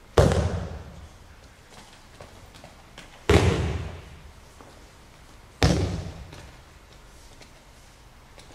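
Three heavy slaps of a falling aikido partner's body and arms hitting tatami mats in breakfalls, about three seconds apart, each followed by a short echo.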